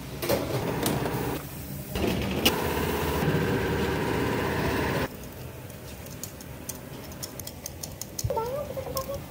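Steady hum of bakery machinery that shifts in level at the cuts and drops sharply about five seconds in. Light clicks and taps of hands working over metal baking trays come through in the quieter stretch.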